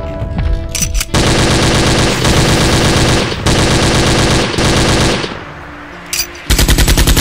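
Rapid automatic machine-gun fire sound effect, standing in for the blasters' shots. It comes in long rapid bursts from about a second in until about five seconds, then one short burst near the end.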